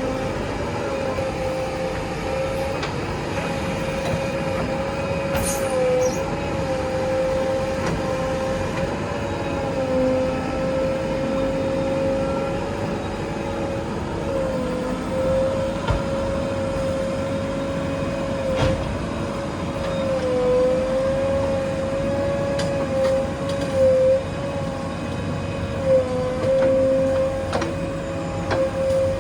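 Backhoe loader's diesel engine and hydraulics running under load, with a steady high whine that dips briefly in pitch now and then, and a few sharp knocks.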